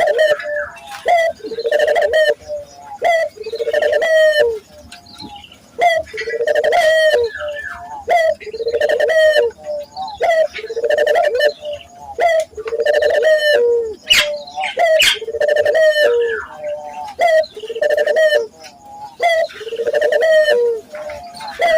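Barbary doves (local puter) cooing over and over, a low rolling coo note repeating about every one to two seconds, with sharp high chirps mixed in.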